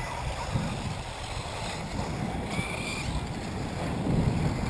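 Wind buffeting the microphone, a gusty low rumble that swells near the end, with a brief faint high whine a little past halfway.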